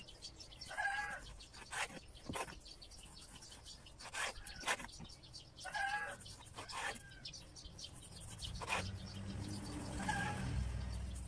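Kitchen knife cutting thin strips of slightly frozen pork belly on a wooden cutting board, a sharp tap of the blade on the board about once a second. A bird calls a few times in the background, and a low rumble rises near the end.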